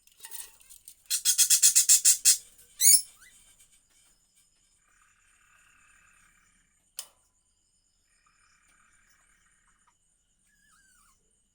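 Pet budgerigars calling: a loud, rapid string of harsh chirps about a second in, then a sharp whistled note, followed by faint soft chattering. A single sharp click about seven seconds in.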